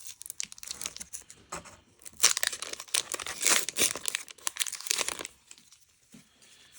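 Foil booster pack being torn open, its wrapper crinkling; the crackling is densest and loudest in the middle and thins out near the end.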